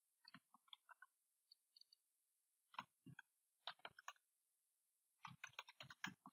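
Faint computer keyboard and mouse clicks: a few scattered clicks, then quick runs of key taps near the middle and again near the end.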